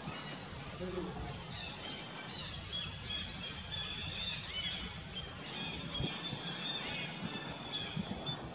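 Small birds chirping, many short high calls repeated all through, over a low steady outdoor rumble.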